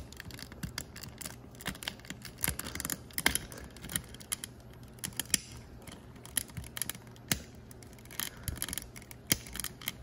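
Hard plastic parts of a Sega/Hasbro i-Dog pup robot toy being handled and pried apart by hand: irregular small clicks, taps and scratches.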